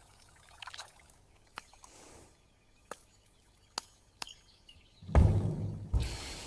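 Scattered light clicks of small kitchenware being handled, then a loud, low, heavy bump about five seconds in, followed by a brief hiss.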